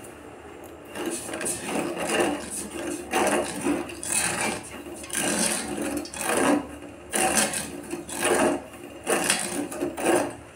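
A spoon stirring sugar and water in a steel saucepan, scraping the grainy, still-undissolved sugar across the pan bottom in about ten strokes, roughly one a second, at the start of making sugar syrup.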